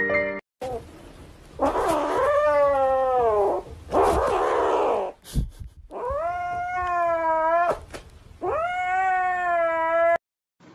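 A cat yowling: a series of long, drawn-out meows, each one to two seconds, rising in pitch and then holding or sagging slightly, with short pauses between them.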